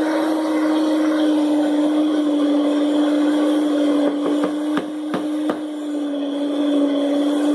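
Electric stand mixer running with a steady motor hum, its beaters working thick cookie dough. A few sharp knocks come about four to five and a half seconds in.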